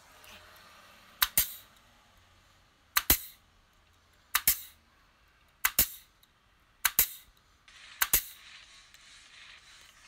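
Pneumatic nail gun firing nails into pallet wood to fasten a birdhouse box, six sharp shots about one to two seconds apart, each a quick double crack.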